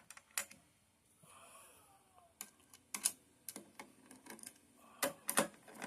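Scattered small clicks and taps of PC hardware being handled, with a few louder clicks about five seconds in.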